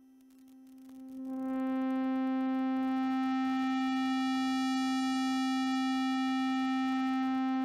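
MOS 6581 SID chip playing a steady square-wave note near middle C through its analog low-pass filter. As the filter cutoff is opened up, the note fades in over the first second or two from a dull, nearly pure tone to a bright, buzzy square wave with its full overtones, then holds steady.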